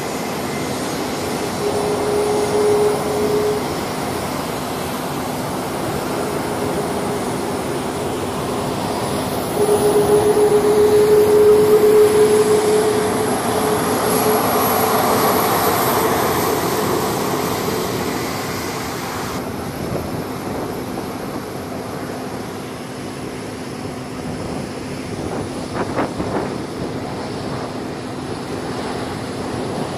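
KC-135 Stratotanker's CFM56 turbofan engines running as the tanker taxis: a steady jet rumble with a low hum underneath. A high whine rises in pitch through the middle and stops abruptly about twenty seconds in. The sound is loudest about ten to thirteen seconds in.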